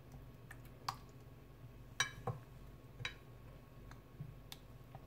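Metal spoon spreading tomato sauce over lasagne sheets in a glass baking dish: a handful of faint, scattered clicks as the spoon knocks against the glass, the loudest about two seconds in.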